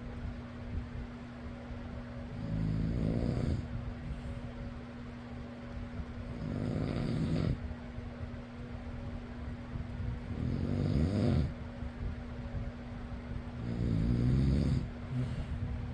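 A person snoring in a slow, regular rhythm, four snores about four seconds apart, over the steady hum of an electric fan.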